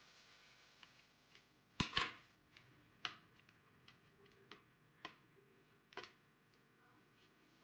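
Faint clicks and knocks of a plastic toy sword's housing and small tools being handled during disassembly, with a louder double knock about two seconds in and single clicks every second or so after.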